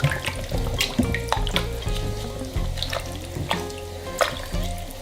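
Background music with a steady melody, over wet squelching and irregular clicks of hands rubbing a thick spice marinade into raw chicken pieces.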